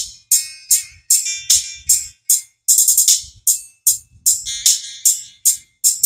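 Music played through a single Technics EAS-8HH17G horn super tweeter behind a crossover. Only the treble comes through: crisp tambourine- and cymbal-like hits, about three to four a second, with almost no bass or midrange.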